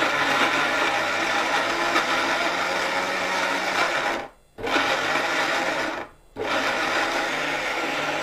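Orpat 1200-watt mixer grinder running at full speed, grinding ginger with a little water into paste in its stainless steel jar. It cuts out briefly twice, about four seconds in and again about six seconds in, and starts straight back up each time.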